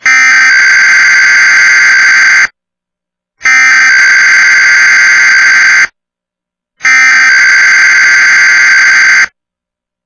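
Emergency Alert System SAME header: three identical bursts of digital data tones, each about two and a half seconds long with about a second's pause between them. This is the coded header that opens a Required Weekly Test alert.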